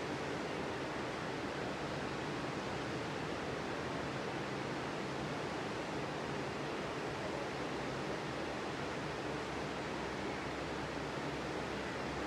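Ocean surf breaking on a sandy beach: a steady, even wash of waves with no single breaker standing out.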